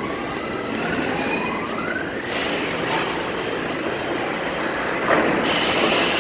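New York City subway R68 train noise heard at the platform, with a rising whine in the first two seconds and a hiss that sets in after about two seconds and stops near the end.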